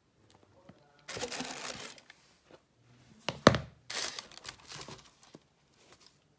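Tissue paper crinkling and rustling in a cardboard shoebox as sneakers are handled, in two bursts, with a sharp knock about three and a half seconds in.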